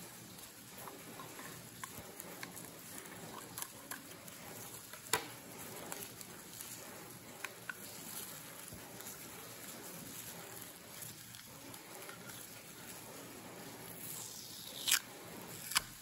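Black plastic bubble wrap being pulled and peeled off a small plastic stamp by hand: crinkling and scattered crackles, with a sharp snap about five seconds in and two more near the end.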